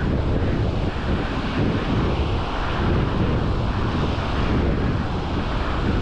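Wind buffeting the microphone in a steady low rumble, with small waves washing on the shore.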